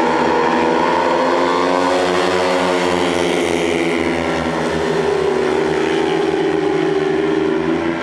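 Several speedway bikes' 500cc single-cylinder methanol engines at full throttle, accelerating hard off the start and racing into the first bend. Their overlapping high-revving notes shift in pitch over the first two seconds or so, then hold steady.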